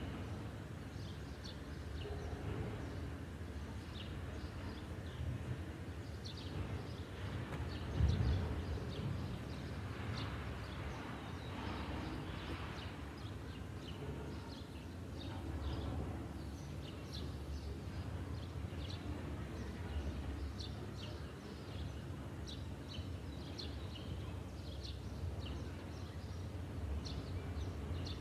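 Small birds chirping on and off over a steady low outdoor rumble, with a single low thump about eight seconds in.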